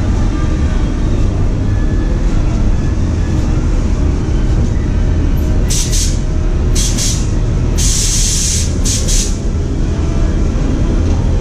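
Narrow-gauge steam locomotive letting off four short hisses of steam, unevenly spaced over about three seconds, the third the longest, over a steady low rumble.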